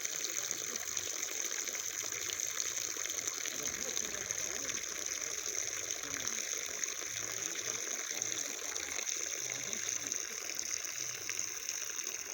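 Steady rushing, splashing water with a continuous hiss.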